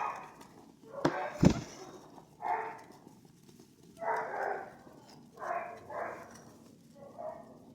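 Domestic pigeons making a series of short sounds, about one a second, with two sharp knocks a little over a second in.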